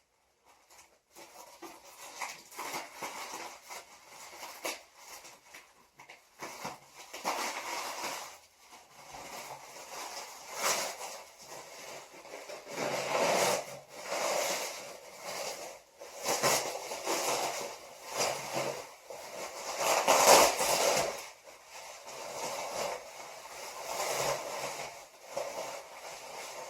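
Packing material crinkling and rustling in irregular bursts as a shipment is unwrapped by hand.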